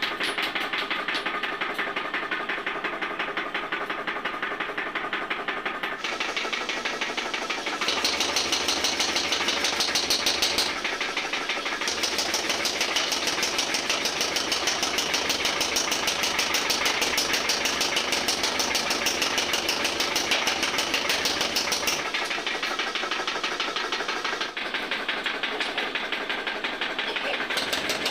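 A motor-driven machine running with a fast, even knocking rhythm. It grows louder and fuller about a third of the way in, dips briefly, then eases back down near the end.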